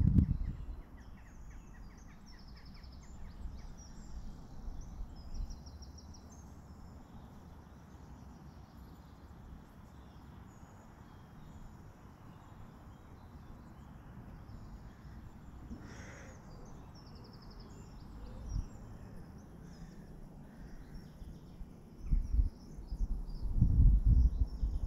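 Small birds chirping and singing, thin and high, over a steady low background noise. Loud low rumbles come right at the start and again near the end.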